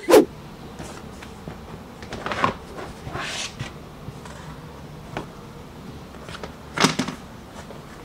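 A few separate knocks and clunks of household handling, the loudest right at the start and another about seven seconds in, with a short hiss a little past three seconds.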